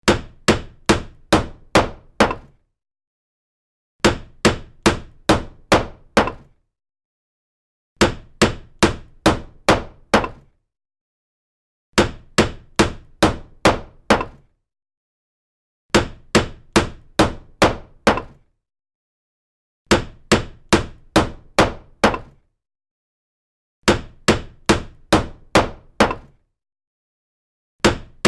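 Hammer blows, struck in quick runs of about six at roughly two a second. The same run repeats every four seconds with a short silence between.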